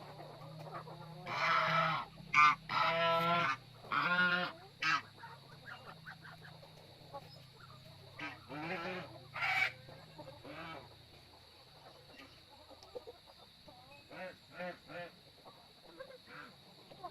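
Farm fowl calling: three loud, drawn-out honking calls in the first few seconds, then quieter calls and a run of short ones near the end.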